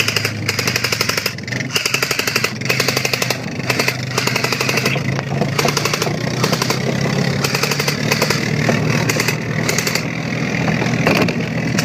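Airsoft electric rifles firing full-auto in repeated rapid-clicking bursts with short breaks, over the steady low hum of a quad's engine running.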